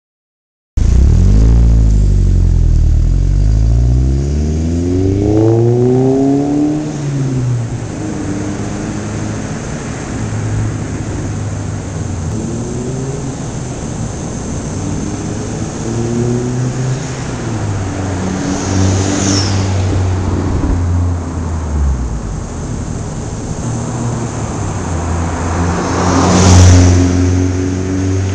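VW MKIV Jetta GLI's turbocharged 1.8T four-cylinder through a Eurojet 3-inch turbo-back exhaust, accelerating: the engine note climbs steadily for several seconds, then comes in shorter rises between shifts. It grows loudest as the car nears, a couple of seconds before the end.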